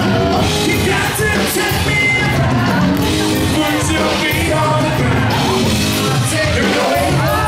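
Live rock band playing loud, with a male lead vocal singing over it and some yelling.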